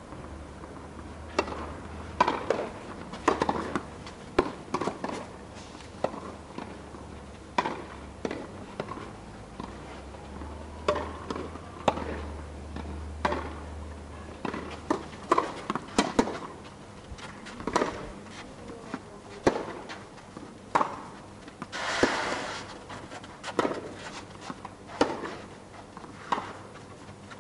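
Tennis balls struck by rackets and bouncing on the court, a string of sharp single pops about a second or so apart through the rallies. About 22 seconds in there is a longer, noisier sound lasting about a second, and a low hum runs under the first half.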